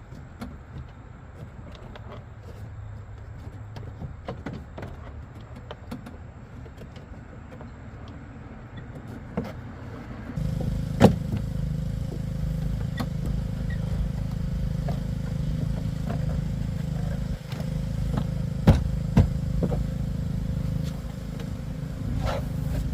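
Plastic truck door trim panel being handled and seated on the door, with scattered clicks, knocks and scrapes. A steady low rumble starts about ten seconds in and runs underneath.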